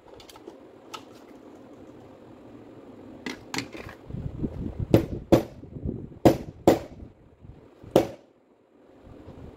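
Sharp knocks and clacks of metal tool parts and hand tools being handled and set down on a workbench during rotary hammer disassembly. There are about seven short knocks, starting around three seconds in, the last one near the end, over a faint steady hiss.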